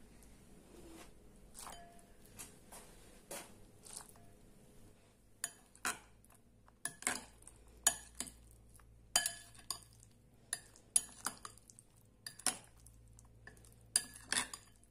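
Metal spoon clinking against a glass bowl while mixing ravioli with pesto. The clinks are irregular, sparse at first and coming thick and fast from about five seconds in.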